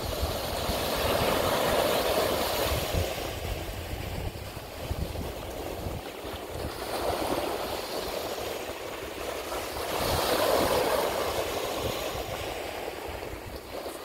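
Ocean waves breaking and washing up on a beach. The surf swells and fades three times: near the start, about halfway through, and again about three-quarters through.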